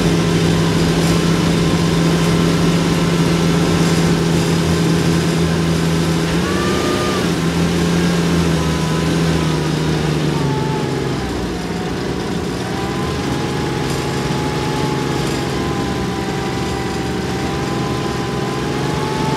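Saurer SPz A1 San tracked armoured carrier driving off-road, heard from the driver's position: its engine runs steadily, with a fainter whine that wanders up and down in pitch. The engine note drops a little about halfway through.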